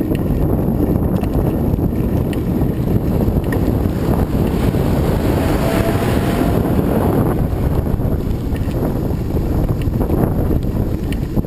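Strong wind buffeting the microphone: a loud, steady, rumbling rush.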